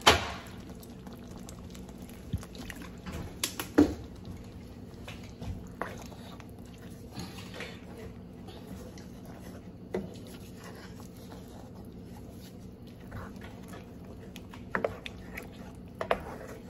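Water poured from a plastic bottle splashing into a cast-iron skillet of bubbling beef-tip gravy at the start, then a wooden spoon stirring the gravy, with scattered knocks and scrapes against the pan over a steady low hiss. The loudest knocks come at the very start and about four seconds in.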